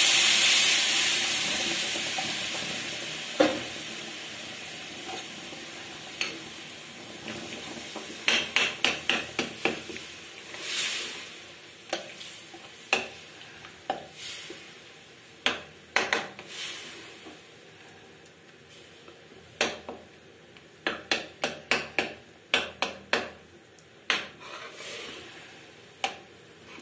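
Water hitting a hot kadhai of fried ground black chana dal paste, sizzling loudly at first and dying away over several seconds. Then a metal ladle stirring the thin dal, knocking and scraping against the pan in quick clusters of clicks.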